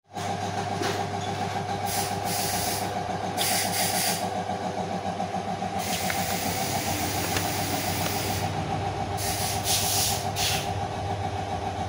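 A machine running steadily, a constant low hum with a wavering steady tone above it, and spells of high hiss that come and go several times.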